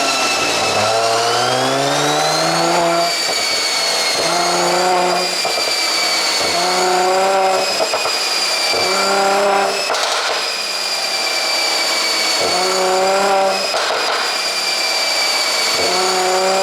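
Mercedes-AMG C43's twin-turbo V6 revved repeatedly from idle, about six blips that each rise in pitch for a second or two, with pops as the revs fall back, from a pop-and-bang ECU tune.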